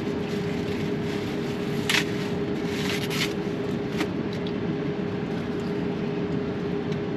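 Steady hum of a vehicle cabin with the motor running, with brief rustling about two and three seconds in and a short click a second later.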